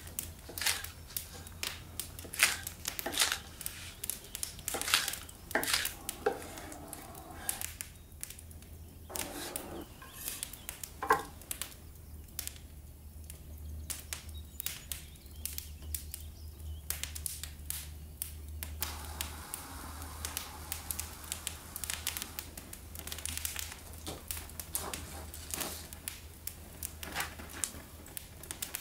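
Kitchen knife chopping green onion on a wooden cutting board: a run of sharp knocks in the first ten seconds or so. After a quieter stretch come more scattered light clicks, over a steady low hum.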